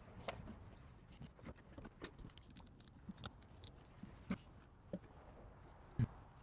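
Ratchet and oil filter cutter cutting through the steel can of a used oil filter: faint, irregular clicks and ticks, with a louder knock about six seconds in.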